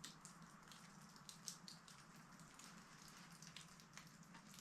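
Near silence: faint room tone with scattered small ticks and clicks.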